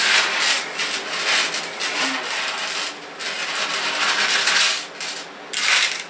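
A hand sifting through a loose pile of small metal PC screws on a countertop: a continuous scraping jingle of metal on metal, with brief pauses about halfway and near the end.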